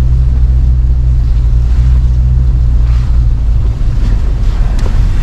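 Vehicle driving slowly along a dirt forest trail, a steady low engine and road rumble heard from inside the cab, with a few faint knocks from about three seconds in.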